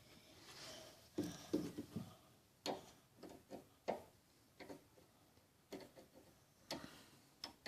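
Faint, irregular clicks and taps of hand pliers being handled against a bathtub drain.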